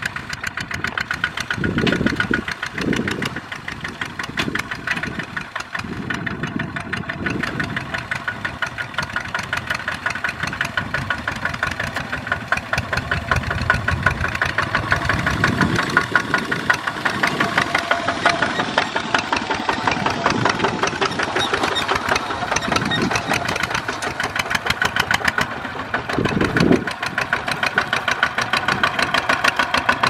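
Single-cylinder diesel engines of two-wheel walking tractors hauling trailers loaded with rice sacks, chugging with a fast, even putter, with a few brief louder swells as the nearest tractor passes.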